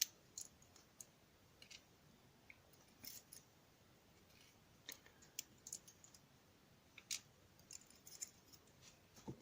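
Scattered faint clicks and ticks of small metal lock parts, the pins and springs of a padlock cylinder, being handled and set down during disassembly.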